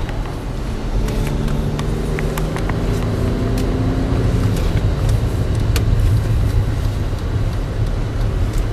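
Inside the cabin of a 2005 Audi Allroad: the 2.7-litre twin-turbo V6 runs quietly under steady road and tyre rumble. Its faint note rises slowly in pitch for a few seconds, then drops away about four seconds in as a gear is changed on the six-speed manual.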